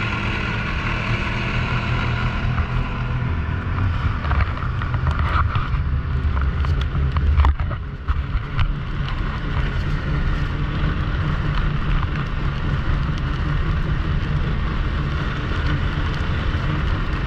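Snowmobile engine running steadily, with wind noise on the microphone. It swells briefly about seven seconds in and drops for a moment just after.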